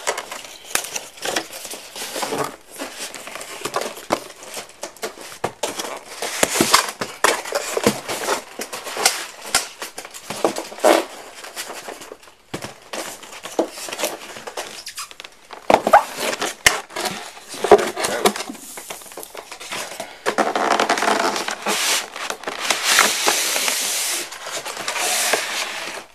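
Cardboard box and packing material being handled and pulled about: an irregular run of crackles, scrapes and knocks, with a longer stretch of crinkling rustle near the end.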